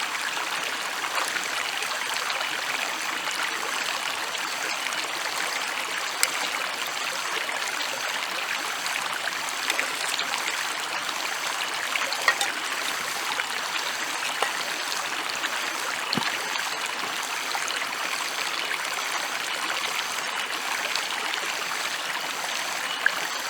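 A stream's flowing water, making a steady rushing hiss, with a few sharp clicks scattered through it.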